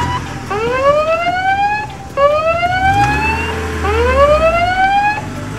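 Fire engine siren wailing in three rising sweeps, each about a second and a half long, over a low rumble.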